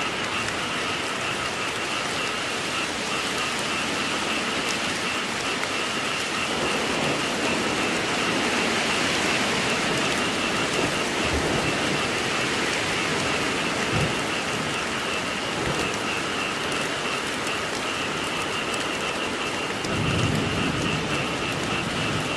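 Steady heavy rain falling, with frogs calling in a continuous pulsing chorus above it. Low thunder rumbles swell up twice, about 14 seconds in and again near the end.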